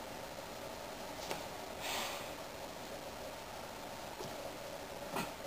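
Quiet room tone with a short breath through the nose, like a snort, about two seconds in, and faint clicks shortly before it and near the end.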